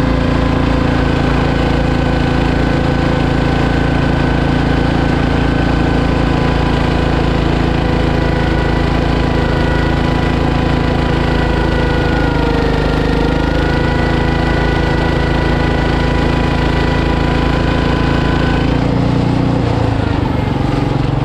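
Cub Cadet 109 garden tractor's engine running hard and steady under load while pulling down the track. Its pitch sags briefly about halfway through, and the note changes about two seconds before the end.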